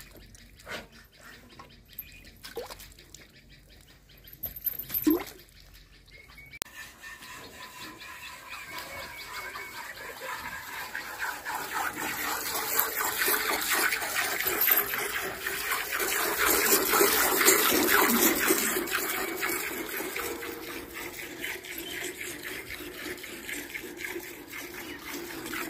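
Cow being milked by hand: milk squirting into a steel bucket, a few separate squirts at first, then about seven seconds in a quick, continuous run of squirts that grows louder, peaks in the middle and eases off.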